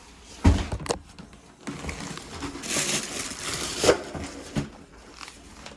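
A heavy thump, then rustling and a few knocks, as of things being handled.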